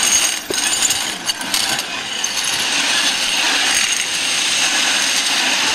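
Metal rollers of a long roller slide clattering in a fast, continuous rattle as a rider on a plastic mat runs over them, with a few louder knocks in the first second or so.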